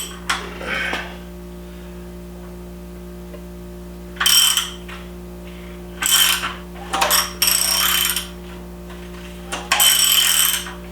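Socket ratchet clicking in about five short bursts as the K24A2 engine is turned over by hand to bring the timing marks into line.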